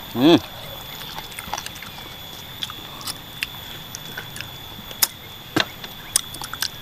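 Chewing and crunching on chicken feet with soft bones, heard as scattered sharp clicks and cracks. A brief vocal sound rises and falls in pitch right at the start.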